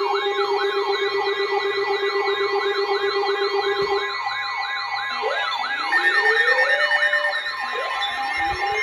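Electronic sirens sounding together: a fast yelp sweeping up and down about three times a second over steady tones. About halfway through the low steady tone stops and the yelp gives way to slower rising wails.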